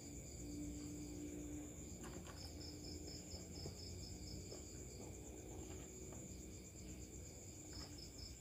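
Faint insects chirring: a steady high trill with a second, pulsing chirp that stops and starts again, over a low background hum and a few faint clicks.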